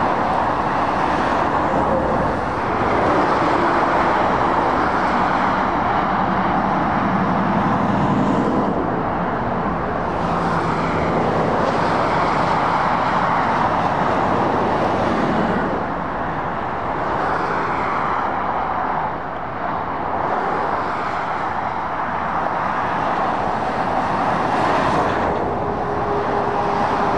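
Steady motorway traffic: lorries, vans and cars passing, with continuous tyre roar and diesel engine drone that swells and eases as each vehicle goes by.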